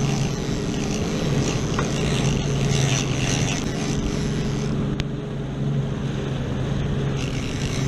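Boat engine running with a steady low hum, under the rush of wind on the microphone and water along the hull. A single sharp click about five seconds in.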